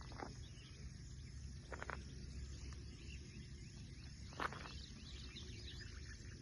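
Outdoor ambience: a steady low rumble like wind on the microphone, faint high chirping of insects, and a few short knocks, the sharpest about four and a half seconds in.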